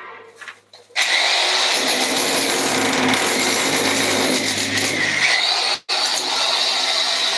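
A power tool starts up about a second in and runs loudly and steadily with a high whine, cutting out for an instant near the end before running on.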